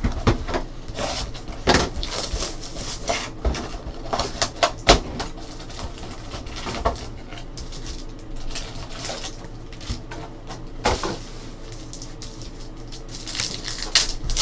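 Handling of a cardboard trading-card box and its foil card packs: irregular sharp taps and clicks with crinkling and rustling as the box is opened and the packs are pulled out.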